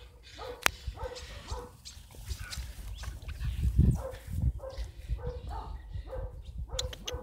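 Puppy making short, evenly repeated whimpering sounds, about two or three a second, over low wind and handling rumble on the microphone, with a loud low thump near the middle.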